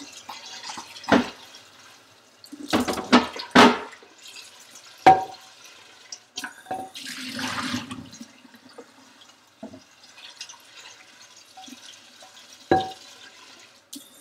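Kitchen tap running while a pan is rinsed out in the sink, with several sharp knocks as the pan is handled against the sink and a stretch of splashing water about 7 seconds in.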